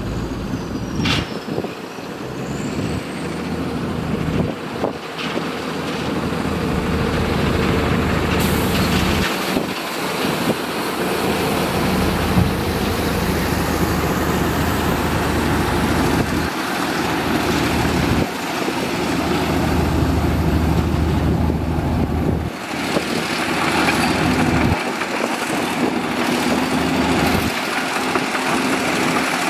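Heavy diesel engines of earthmoving machines (a bulldozer and dump trucks) running under varying load, the low engine note rising and dropping away several times.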